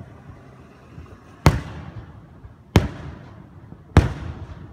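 Aerial firework shells bursting: three sharp booms about a second and a quarter apart, each trailing off in a fading rumble.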